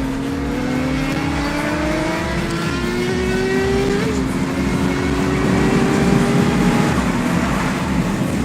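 Suzuki GSX-R600's inline-four engine pulling hard under acceleration, its pitch climbing steadily, with a brief blip and drop about four seconds in as it shifts up, then climbing again.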